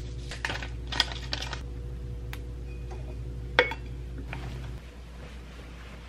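Light clinks and taps of a tumbler being handled on a stone countertop, with one sharp clink that rings briefly about three and a half seconds in. A low hum underneath stops about a second later.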